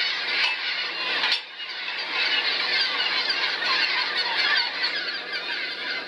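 A large flock of gulls calling over one another in a dense, raucous din. The sound briefly drops away just over a second in, then resumes.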